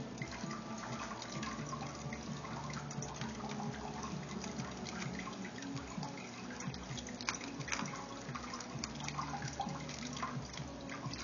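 Plastic bendy straws and bubble wrap being handled, giving an irregular run of small crinkles and clicks as the straws are fitted and bent.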